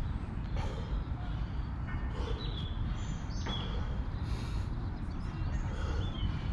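Outdoor ambience: a steady low rumble with a few short bird chirps scattered through it.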